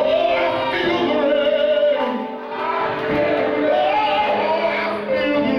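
Live gospel singing: a man's voice through a handheld microphone, with held notes and a bending melody.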